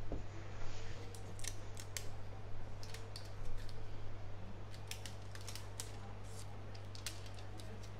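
Thin plastic protective film being peeled off a new Apple TV, crackling in scattered sharp clicks, over a steady low electrical hum.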